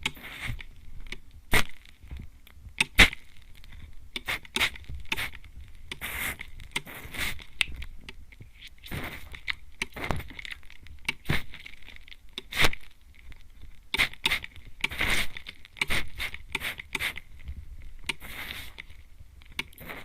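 Hand-pump mist spray bottle (atomizer) sprayed close to the microphone: a string of short, irregular hissing sprays about a second apart, with a few sharp clicks among them.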